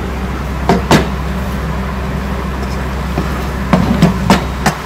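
Wooden spatula knocking and scraping against a metal cooking pot while sliced onions are stirred into minced meat: two sharp knocks just under a second in, then four more in quick succession near the end, over a steady low hum.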